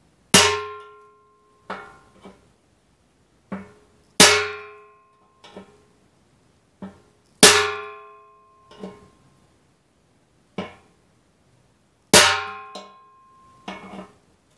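Small brass mallet striking a transfer punch to mark holes in a new stainless steel fuel tank: four hard blows, each leaving the hollow tank ringing for about a second, with lighter taps in between.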